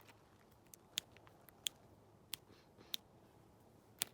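A series of sharp, short clicks, about five in four seconds at uneven spacing, over a faint steady background.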